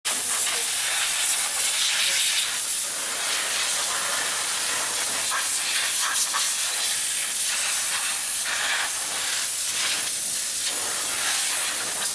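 Pressure-washer wand spraying water over a car's engine bay, a steady loud hiss that swells and thins as the jet moves across different parts, rinsing off the degreaser.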